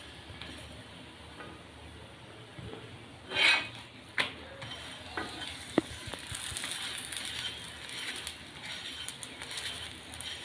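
Lachha paratha sizzling on a hot iron tawa as a metal spatula presses and scrapes it, with a few sharp clatters of the spatula against the pan, the loudest about three and a half seconds in.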